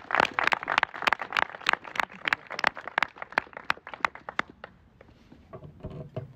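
A small group clapping, thinning out and dying away about four and a half seconds in, followed by a brief voice near the end.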